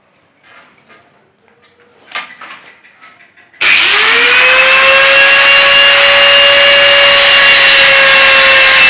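Angle grinder switched on about three and a half seconds in: its whine rises quickly and then holds steady and loud, the tool used to cut scrap flat steel to length. Before it, a few faint handling knocks.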